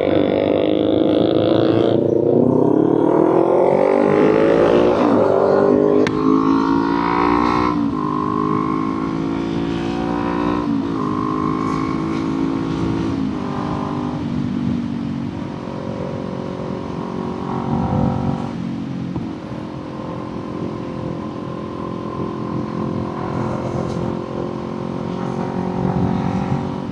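Kawasaki Z400's parallel-twin engine pulling through the gears: its pitch rises and then steps down at each shift over the first several seconds. After that it settles into a steady, lower-pitched cruise, with wind and road noise underneath.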